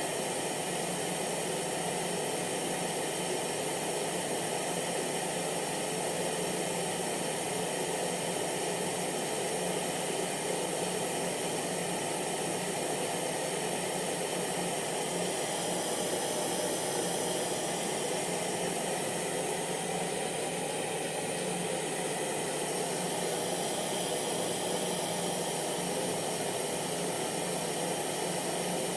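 Hair dryer running steadily: a constant rushing hiss of blown air over the hum of its motor.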